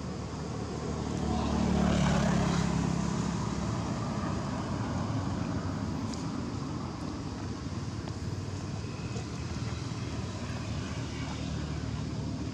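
Motor vehicle engine hum, swelling as a vehicle passes about two seconds in, then running on steadily at a lower level.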